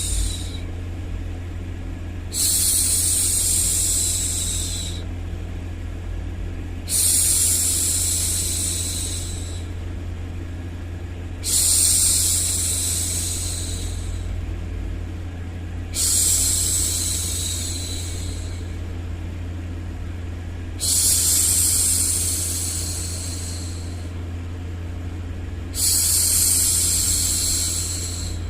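A woman's voice going "shhh" to hush a baby, repeated about every four and a half seconds. Each shush is long and even and lasts about two and a half seconds. A steady low white-noise hum runs underneath.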